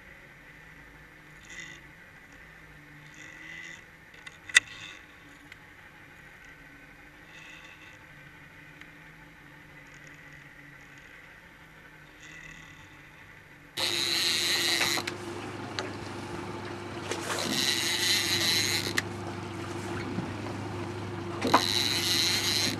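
Faint underwater ticks, with one sharp click about four and a half seconds in. From about fourteen seconds in, a boat engine's steady hum with three bursts of rushing noise.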